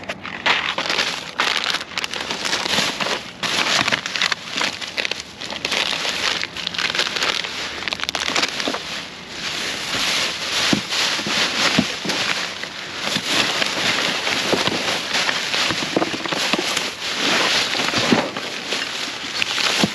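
Thin plastic trash bags rustling and crinkling continuously as gloved hands rummage through them.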